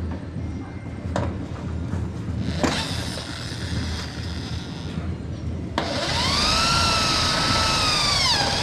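A small motor whines in, starting suddenly about six seconds in; its high pitch rises, holds steady, then dips near the end. Before it there is a background clatter with a couple of sharp knocks.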